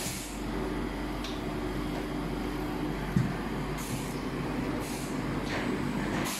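Automatic carousel screen-printing press and conveyor dryer running with a steady machine drone and hum. Short pneumatic hisses of released air come several times in the second half, and there is a single sharp knock about three seconds in.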